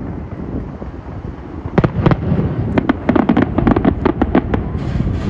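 Aerial fireworks going off: low rumbling booms, then from about two seconds in a dense run of sharp crackles and pops lasting a couple of seconds.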